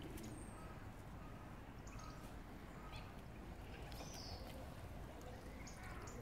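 Quiet canal-side ambience: a steady low rumble with a few faint, short bird chirps scattered through it.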